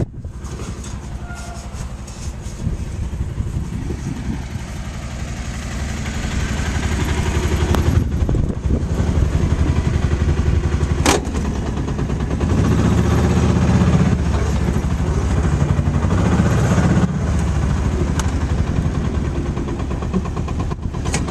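A Mule utility vehicle's engine running loud as it drives, picking up in level twice as it speeds up. There is a single sharp click about eleven seconds in.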